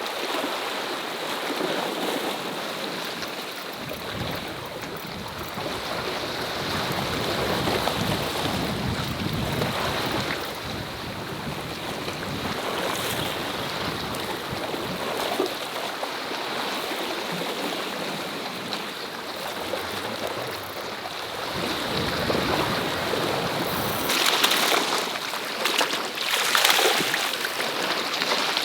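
Sea waves washing and surging against a rocky shore, swelling and falling every few seconds, with a louder surge over the last few seconds.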